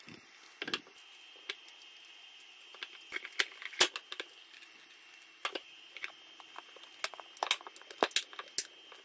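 Scattered plastic clicks and knocks as a filament spool is set into a plastic dry box and the box's clear lid is fitted, with a quick cluster of snaps near the end.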